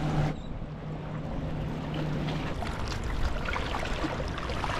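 Outboard motor of a center-console boat idling in a steady low hum that fades out about halfway through, with water lapping and trickling among shoreline rocks.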